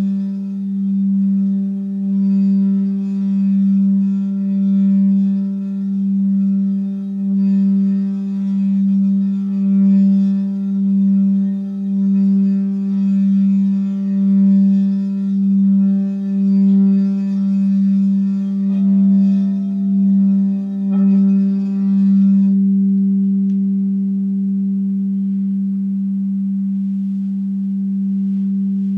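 Frosted crystal singing bowl played by rubbing a wand around its rim: one low, steady tone that swells and fades about once a second with each circuit of the wand. A higher tone joins about two-thirds of the way through, then the rubbing stops and the low tone rings on smoothly.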